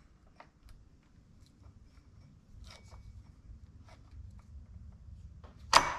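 Small metal clicks and light scraping of a hand tool being worked against a stuck part of a Makita DCS6401 chainsaw, trying to grip it and pull it off, with one sharp loud click near the end. The attempt fails and the part stays on.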